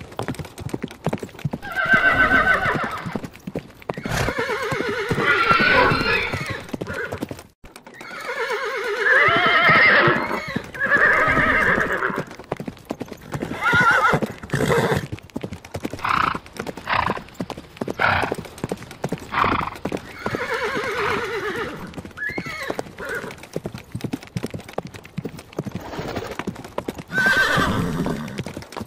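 Horses whinnying again and again, about six long wavering calls, over the steady clip-clop of hooves on hard ground.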